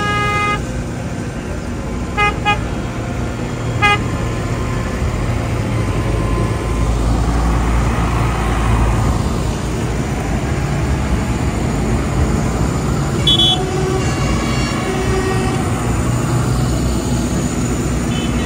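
Diesel tractor engines running as a line of tractors drives past on a wet road, the rumble building as one passes close about halfway through. Short horn toots sound at the start, twice around two seconds in, once at about four seconds and again around thirteen seconds in.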